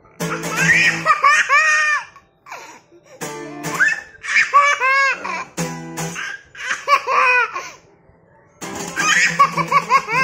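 A toddler laughing hard in four bursts of rapid, high-pitched belly laughter, with short pauses between them.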